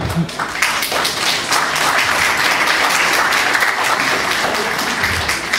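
Audience applauding: many hands clapping together, building over the first second and thinning near the end.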